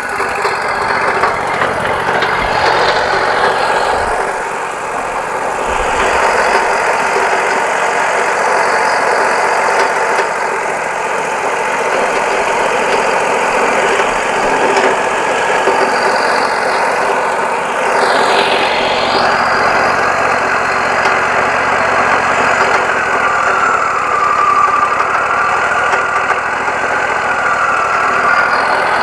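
Wood-Mizer LT40 Wide hydraulic sawmill running steadily, its engine and band blade sawing a yellow pine cant into boards. There is a brief change in the sound a little past halfway, and a wavering whine near the end.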